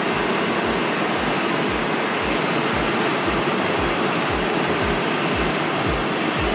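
A steady rushing noise with a regular low thud about three times a second.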